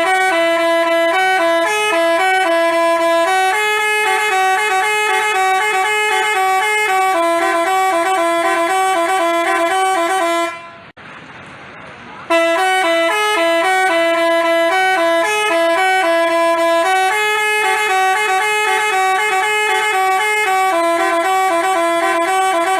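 Basuri telolet horn playing a tune of stepped, multi-tone horn notes. It stops about ten seconds in and, after a gap of about a second, plays the same tune again.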